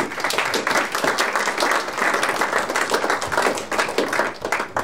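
Audience applauding: many people clapping at once, starting abruptly and dying away near the end.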